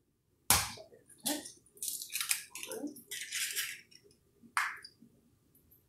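Eggs being cracked on the rim of a glass mixing bowl: a sharp knock about half a second in, then short crackling and rustling as the shells are pulled apart and the eggs drop into the bowl.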